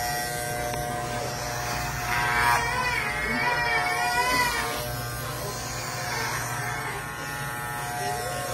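Soft background music of sustained, held tones over a steady buzz. About two seconds in, a high, wavering voice rises and falls for a couple of seconds.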